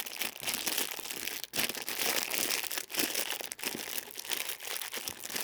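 Crinkling and rustling of plastic packaging being handled, a continuous run of small irregular crackles.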